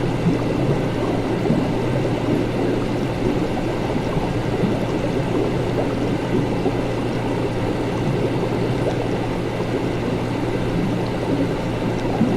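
Laboratory ambience: liquid bubbling steadily over a constant low hum, with a few faint steady tones above it.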